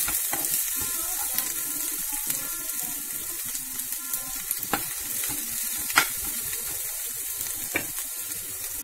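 Chopped onion, green chilli and capsicum sizzling in hot oil in a nonstick kadai as they are sautéed, a steady hiss. A perforated steel spoon clicks against the pan now and then, most sharply about six seconds in.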